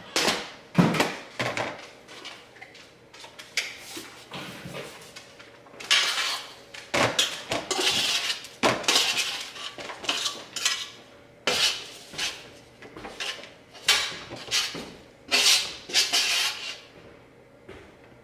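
A metal fork scraping and clinking against a metal baking sheet as cooked zucchini and onion slices are scooped off it, in repeated short strokes with a few longer scrapes.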